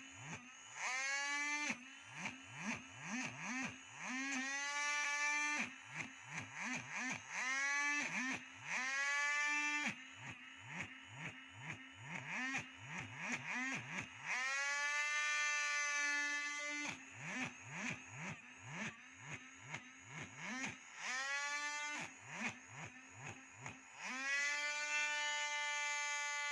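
Small electric motor of a handheld power tool, pulsed on the trigger in quick short bursts, each a brief rising whine. It is then run longer, winding up to a higher steady whine. The cycle repeats about every four seconds.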